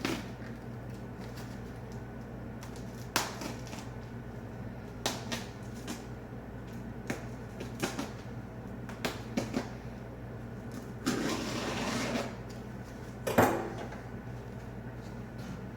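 Handling noises from unpacking a heavy resin statue out of its foam-lined box: scattered knocks and bumps, a rustling scrape lasting about a second around eleven seconds in, and the loudest knock just after, over a steady low hum.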